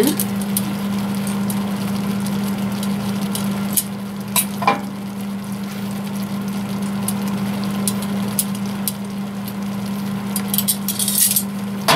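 Steady low hum and hiss in a kitchen, with a few light clinks of metal tongs against a ceramic plate as spinach is served onto pasta, and a brief clatter near the end.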